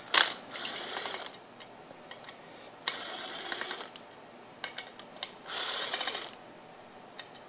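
Cordless impact driver tightening the bolts of a billet aluminum motorcycle floorboard, running in three short bursts of about a second each.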